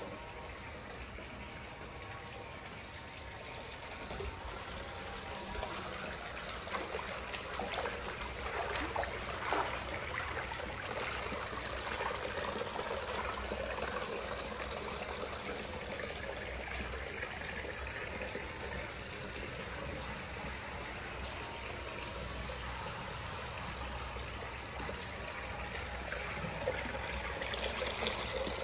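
Hot-spring water pouring and trickling from a rock spout into a stone-lined open-air bath, a steady splashing that grows louder about four seconds in.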